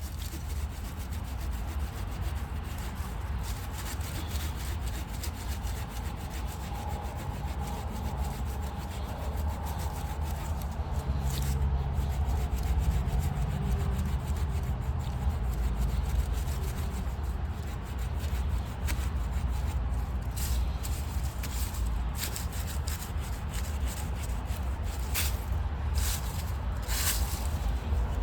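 Leatherman Wave multitool's small folding saw blade sawing back and forth through a 2-inch tree trunk, a steady rasping of teeth on wood.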